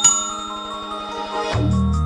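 Intro background music: a bright bell-like chime struck at the start rings and slowly fades, then a deep bass and a beat come in about one and a half seconds in.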